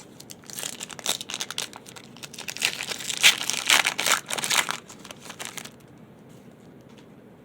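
Plastic wrapper of a Panini Chronicles basketball card pack crinkling and tearing as it is opened: a rapid crackle lasting about five seconds, loudest in the middle, then stopping.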